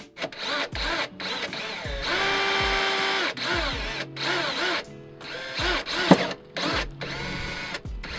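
Cordless drill boring holes through the floor of a roof box. The motor speeds up and slows down in many short trigger pulls, with one longer steady run about two seconds in.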